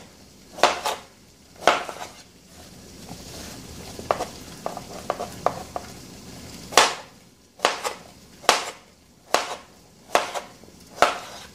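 Kitchen knife slicing zucchini into half-moon slices, each stroke ending in a knock of the blade on the cutting board, about one a second, lighter and quicker taps through the middle.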